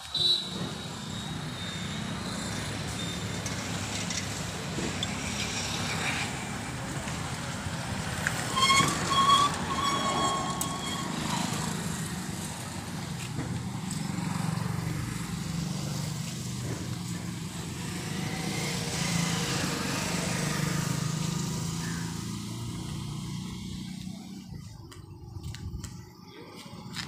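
A motor vehicle engine running steadily with a low rumble, with a short high-pitched tone about nine seconds in.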